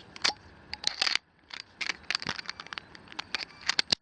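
Bits of a 6-in-1 screwdriver being handled and swapped: a series of short, irregular clicks and clatters of metal and plastic.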